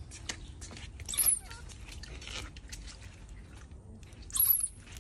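Baby macaque giving two short, shrill squeals, about a second in and again near the end, with faint scuffling between them.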